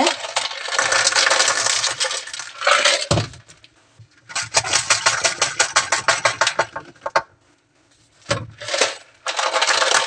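Coarse dishwasher salt crystals being poured through a plastic funnel into the dishwasher's water-softener salt reservoir, rattling and clattering as they go in. There are spells of quick, even clicking as the funnel is jiggled up and down to work the large pieces through. The pouring comes in several runs with short pauses.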